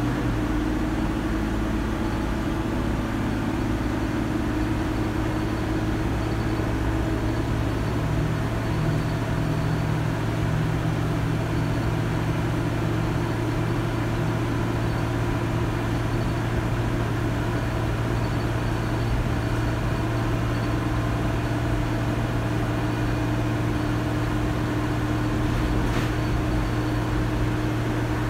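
Dennis Dart SLF bus's Euro 2 diesel engine and Allison AT545 automatic gearbox driven hard at a steady pace, heard from inside the saloon as a steady drone with a whine over it. There is a single brief click near the end.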